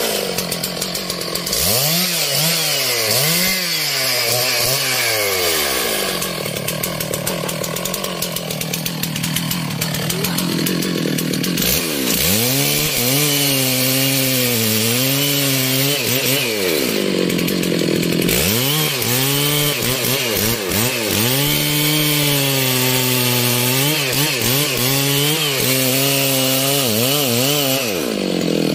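Stihl MS 660 two-stroke chainsaw cutting into a rain tree trunk. The engine's pitch repeatedly sags under load as the chain bites and climbs again as it frees up, with a harsher, higher stretch of steady cutting near the middle.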